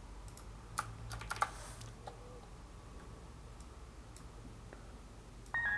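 Scattered clicks from a computer keyboard, a dozen or so spaced irregularly, over a low steady hum. Just before the end a chord of synthesized bell notes starts ringing.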